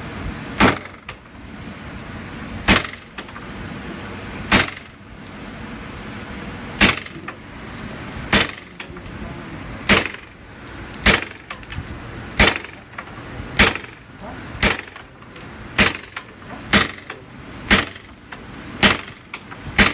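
Suppressed 9mm Glock 19 pistol in a Roni carbine conversion kit firing about fifteen single shots, the pace quickening from about one every two seconds to about one a second.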